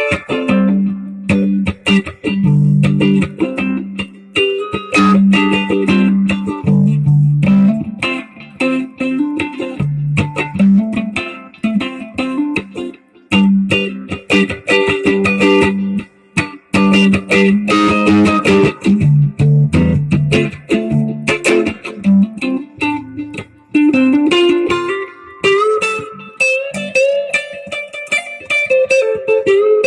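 Electric guitar played solo through a slight delay effect, picking a low line of notes under higher notes and chords, moving to higher, longer-held notes near the end.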